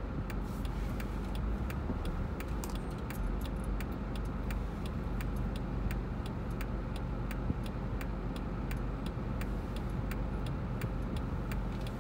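A car's turn-signal clicker ticking steadily, a few clicks a second, over the low hum of the car idling inside the cabin at a stop.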